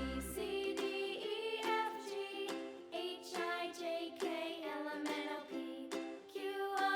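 Children's song music with plucked, ukulele-like strumming and a melody line that could be singing.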